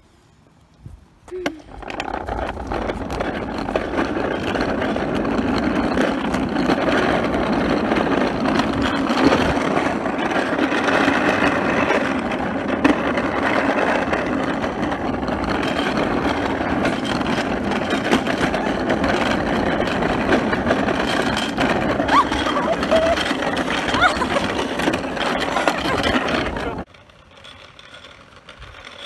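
Small hard wheels of a chair-carrying dolly rolling fast on an asphalt road: a loud, steady rolling noise that starts about two seconds in and cuts off suddenly near the end.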